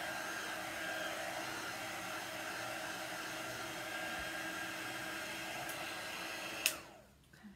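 Handheld dryer blowing steadily with a motor whine, drying chalk paste. Near the end it is switched off with a click and its whine falls away as the motor spins down.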